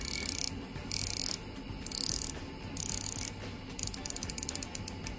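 Unidirectional ceramic bezel of a Goode Goman 1200 m dive watch turned by hand, its ratchet clicking crisply. The clicks come in short bursts about once a second, then as a run of separate clicks near the end.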